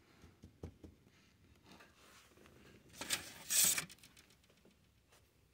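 Plastic model parts being handled on a workbench: a few small clicks and taps, and a brief rustling scrape about three and a half seconds in.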